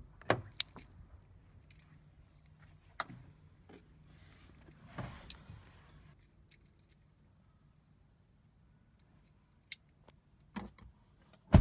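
Faint low hum inside a car, with scattered sharp clicks and knocks from handling. The loudest knocks come near the start and at the very end.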